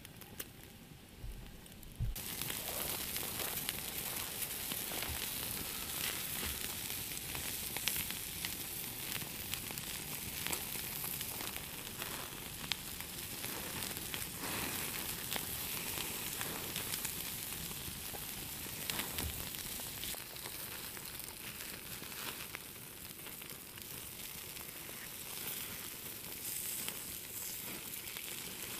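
Seasoned meat sizzling as it fries: a steady sizzle sprinkled with small crackles that starts suddenly about two seconds in.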